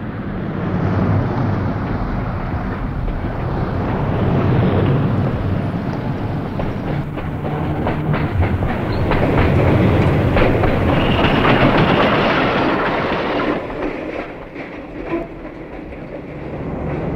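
Electric streetcar running past on street rails: a rumble with wheels clicking over the rail joints, loudest as it goes by about ten seconds in, with a high steady whine at its closest, then dropping away.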